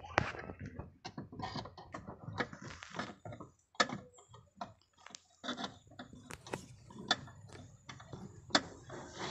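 Irregular metallic clicks and knocks of hand tools on fittings as a clutch master cylinder is fitted up under a car's dashboard, some louder knocks standing out among lighter ticks.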